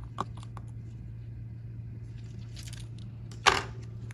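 A few small clicks from a precision screwdriver and tools working the tiny Phillips screws of an iPhone's top bracket, then a short, louder scrape about three and a half seconds in, over a steady low hum.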